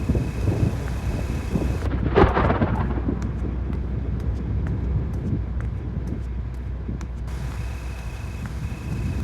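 Thunder rumbling low and continuously during a severe thunderstorm, with a sharper, louder crack about two seconds in that rolls off over the next second.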